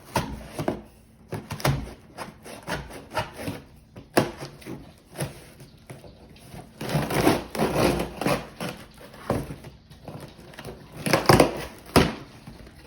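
Scissors cutting and scraping through packing tape on a cardboard box: irregular snips, crinkles and scratches, loudest about seven and eleven seconds in.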